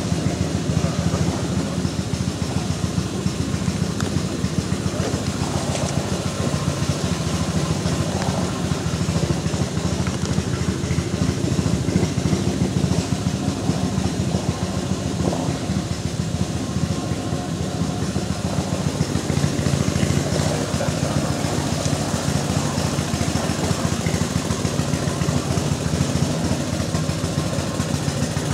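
Small engine of a motorized canoe running steadily under way.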